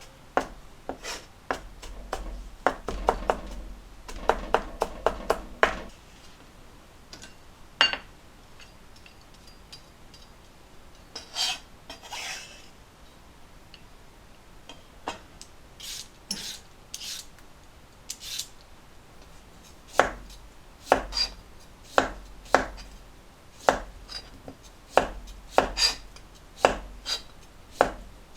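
Knife chopping on a cutting board: a quick run of strokes, a pause with a short scrape partway through, then steady strokes about one or two a second.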